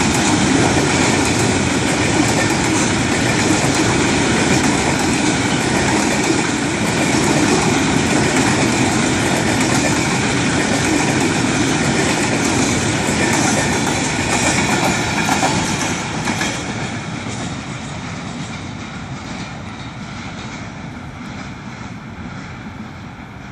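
Covered freight wagons of a long freight train rolling past, their wheels running steadily on the rails. About two-thirds of the way through, the last wagon goes by and the noise fades steadily as the train moves away.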